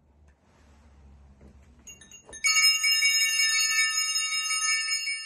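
Altar bell struck once, about two and a half seconds in, ringing with several clear high tones that hold and slowly fade. This marks the elevation of the consecrated elements in the Communion rite.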